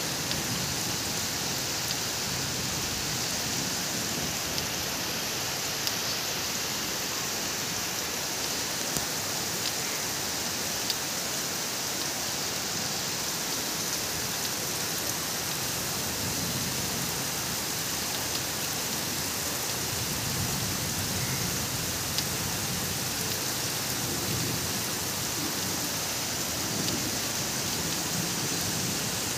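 Heavy rain pouring steadily onto clay-tiled roofs and trees, an even hiss with scattered drop ticks. A few soft low swells rise under the hiss in the second half.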